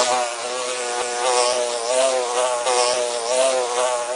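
Honeybee buzzing steadily in flight, a continuous droning hum whose pitch wavers slightly.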